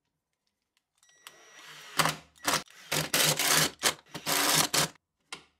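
Cordless drill driving a wood screw through a toggle clamp's metal base plate into a board, its motor starting slowly about a second in, then running in a series of short trigger bursts. It stops just before the end, followed by a short click.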